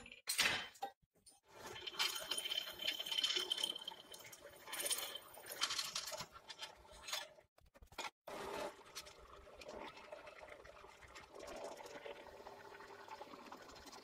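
A few sharp hammer blows on a steel box-section piece, then several seconds of irregular clattering. After a short break about 8 s in comes the steady running of a benchtop drill press motor with a faint hum.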